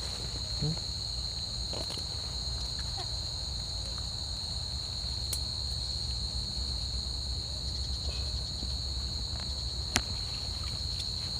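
Steady, high-pitched trill of a night insect chorus over a low rumble, with a single sharp click near the end.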